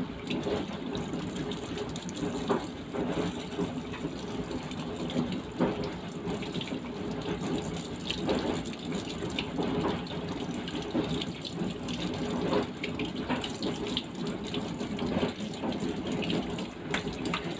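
Kitchen tap running steadily into a stainless steel sink, the stream splashing over a raw fish held beneath it, with scattered short scraping and knocking sounds as the fish's cavity is scrubbed with a toothbrush.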